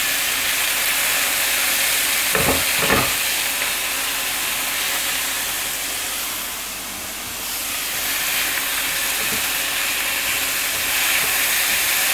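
Minced mutton sizzling in hot oil with chopped onion and garlic in a frying pan, stirred and broken up with a silicone spatula. Two short knocks come about two and a half seconds in, and the sizzle dips briefly around seven seconds.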